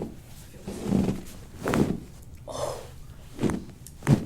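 Chiropractic side-lying twist adjustment of the back: shifting and bumps on the treatment table, with a few short sharp cracks as the spine is twisted, one about two seconds in and one just before the end.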